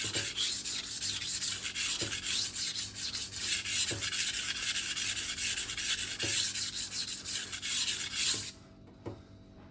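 Fiskars chef knife blade stroked back and forth on the 400-grit side of a vitrified diamond whetstone: a steady gritty scraping with faint knocks every couple of seconds, a last pass to weaken the burr. The scraping stops abruptly about eight and a half seconds in.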